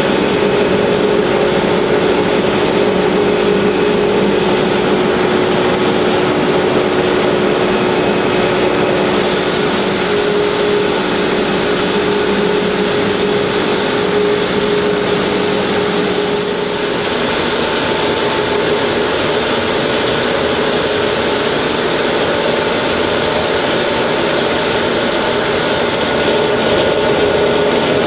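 Motor-driven process pumps and machinery of a wood impregnation and hot-oil plant running steadily: a loud, even machine hum with a held mid-pitched drone. A high hiss joins about a third of the way in and drops out near the end, and the drone fades for a while past halfway.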